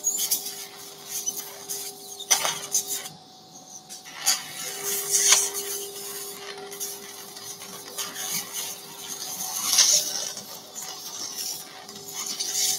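Surgical suction tip drawing blood and fluid from a dog's nasal wound: intermittent hissing and slurping with a few clicks, over a steady low hum that drops out for a moment near the middle.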